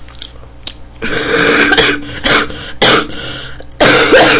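A woman coughing and clearing her throat in a run of harsh bursts: one long burst about a second in, then several shorter ones, the last with a little voice in it. Loud and close to the microphone.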